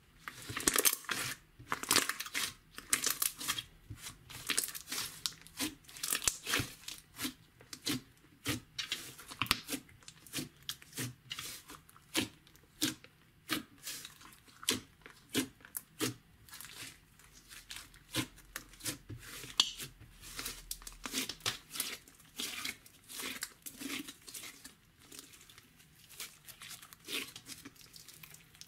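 Slime being squeezed and pressed by hand, giving a run of short crackling squelches, irregular, about one or two a second.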